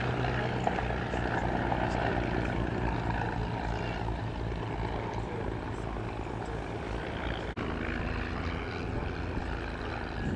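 Several replica WWI biplanes' piston engines and propellers droning steadily as the formation flies past, with a brief dropout about seven and a half seconds in.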